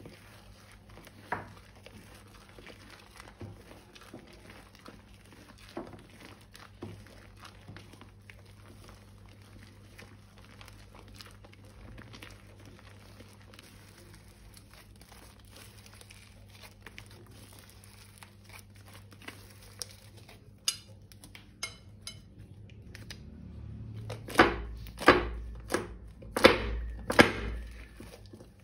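Thin plastic crinkling and crackling as it is handled, with scattered sharper clicks from about two-thirds in and four or five loud snaps near the end.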